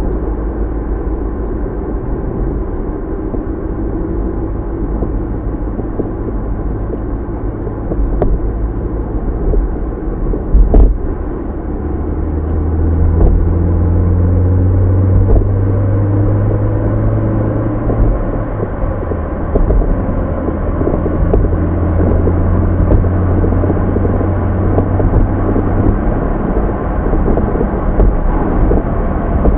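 Car engine running, a steady low rumble. A louder low drone sets in about twelve seconds in and eases off a few seconds before the end, with one sharp knock just before it sets in.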